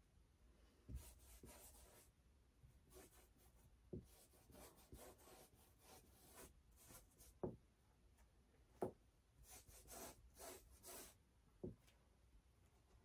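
Faint brush strokes scrubbing and swishing across a canvas in repeated passes, with about five sharp taps scattered through.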